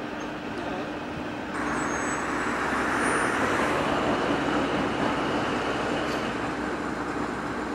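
Henschel diesel shunting locomotive's engine running steadily. About a second and a half in, it jumps suddenly to a louder, rougher engine sound that holds.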